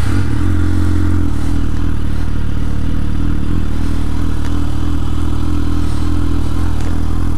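Suzuki GSX650F's inline-four engine idling steadily at a standstill, with no revving.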